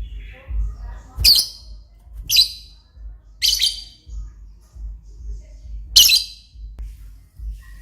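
Lovebird giving four short, shrill shrieks, three in quick succession about a second apart and a fourth a couple of seconds later, over a low rumble.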